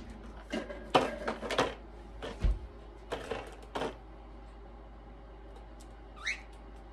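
A run of sharp clicks and rustling clatter over the first four seconds, then a single short rising chirp from a cockatiel about six seconds in.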